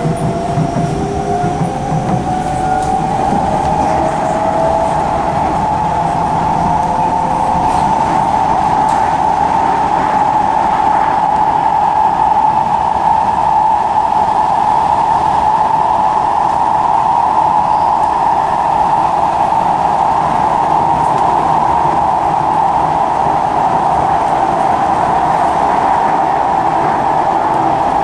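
Two Singapore MRT trains, a C151C and a C151A, heard together from inside their carriages while running. A rising motor whine fills the first few seconds, then a loud steady running noise with a strong hum as both trains travel through a tunnel.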